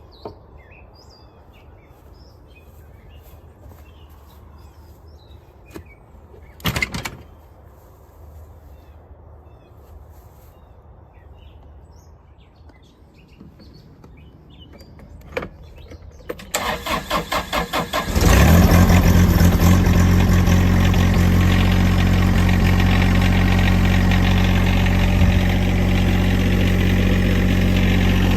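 Tractor engine cranked by the starter for under two seconds, about six pulses a second, then catching a little past halfway and running steadily. Before that, faint bird chirps and a couple of short knocks.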